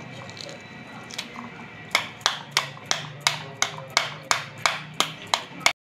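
Knife handle tapping the back of a halved pomegranate to knock the seeds out onto a plate: sharp, even knocks, about three a second, starting about two seconds in and cutting off just before the end.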